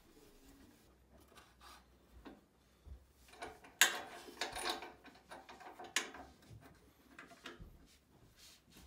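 Quiet handling noise at a drill press with the motor off: clicks, rubbing and knocks of the table-height mechanism and of a wooden key and block shifted on the metal table. Two sharper knocks come about four and six seconds in.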